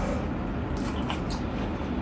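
A person chewing a mouthful of rice and curry with the mouth closed, with a few soft wet mouth clicks near the middle, over a steady low rumble.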